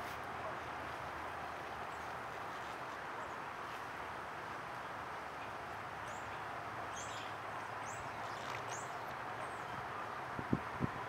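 Steady outdoor background hiss with a few short, high bird chirps in the middle, and two dull thumps close together near the end.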